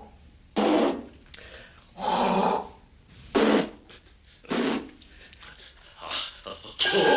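A man's short, breathy huffs, five in all, about a second and a half apart. The second is the longest and the last is faint.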